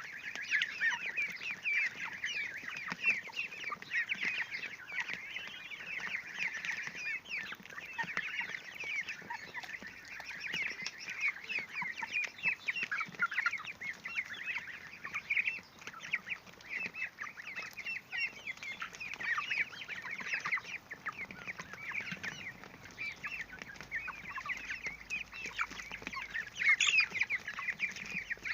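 A flock of three-week-old Cobb 500 broiler chicks, ducklings and goslings peeping constantly around a feeder, a dense chorus of short high chirps with no break.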